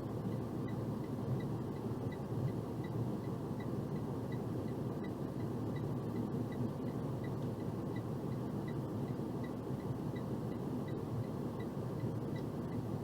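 Steady low rumble of a box truck driving, heard from the cab, with a faint regular ticking about twice a second.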